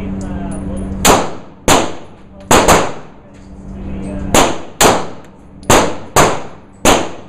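Nine shots from a 9mm pistol, fired at an uneven pace with some quick doubles, each crack ringing briefly in an indoor range.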